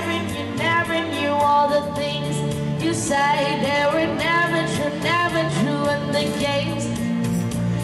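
A woman singing a pop ballad into a microphone over a karaoke backing track, amplified through a PA system.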